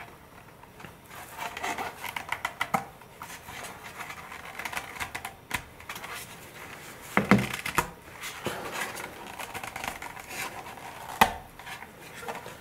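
Motor mount being pressed and worked into a tight-fitting model glider nose pod: a run of small scraping, rubbing and clicking sounds, with a duller knock about seven seconds in and a sharp click near the end.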